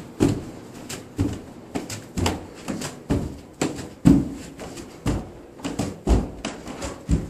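Footsteps thudding on stairs in an enclosed stairwell: about a dozen heavy steps at uneven spacing, one or two a second, each with a short echo.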